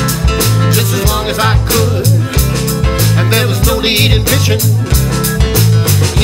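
Folk-rock band playing live, an instrumental passage with a walking bass line, steady drum-kit beat and guitar.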